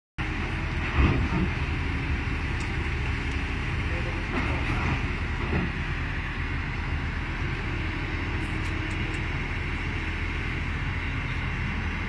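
Kobelco hydraulic excavator's diesel engine running steadily under work, with a knock about a second in.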